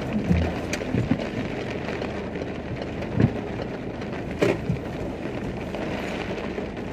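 Rain falling on a car's windshield and body in strong wind, heard from inside the moving car over steady road noise, with a few short knocks about three and four and a half seconds in.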